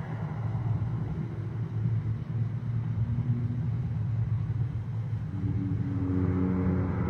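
A steady low rumble, joined by faint steady tones about five and a half seconds in.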